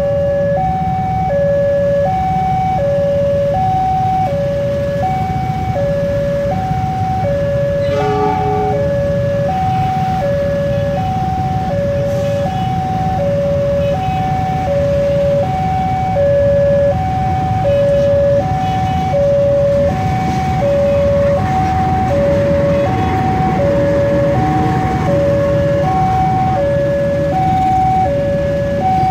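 Railway level-crossing warning alarm sounding a steady two-tone ding-dong, high and low notes alternating about once a second, over the low rumble of idling motorcycle engines. A short horn-like toot comes about eight seconds in, and in the last few seconds the noise of a passing train rises under the alarm.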